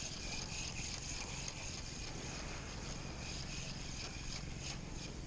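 Steady outdoor background: a continuous high-pitched insect drone over a low rumble.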